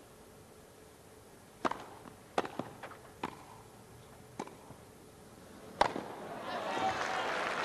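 Tennis ball struck by rackets on a grass court: a serve and a short rally of sharp hits about a second apart, the last and loudest near six seconds in. Crowd applause rises straight after, as the point is won.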